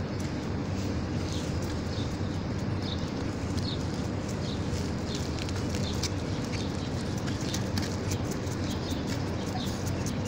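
Outdoor ambience: a steady low rumble with short, high, falling chirps repeated about once a second, and faint clicks that grow more frequent in the second half.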